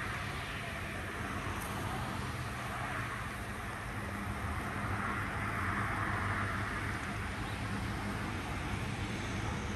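Road traffic at a multi-lane intersection: the steady hiss of cars passing, with a low engine hum underneath, swelling as a vehicle goes by about five to six seconds in.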